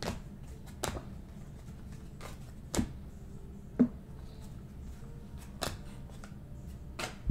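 Trading cards and packs handled on a table: scattered short taps and clicks as cards are set down and moved, the loudest a dull knock near the middle, over a steady low hum.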